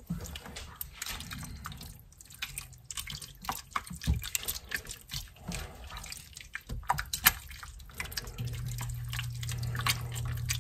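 Wooden spoon stirring a wet, chunky chicken chili in a pot, with squelching and irregular knocks of the spoon against the pot. A low steady hum comes in about eight seconds in.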